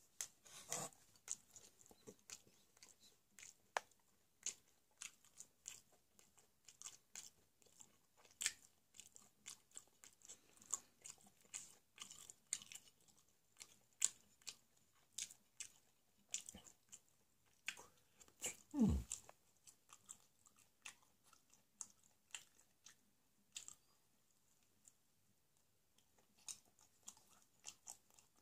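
A person chewing thick-crust square pizza: soft, irregular mouth clicks and crackles, with one louder, lower mouth sound about two-thirds of the way through.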